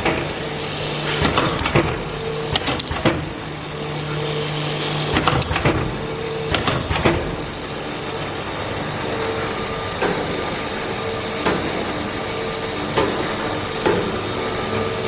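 Automatic bottle filling line running: a motor hum that comes and goes, with irregular clicks and knocks from the conveyor and machinery.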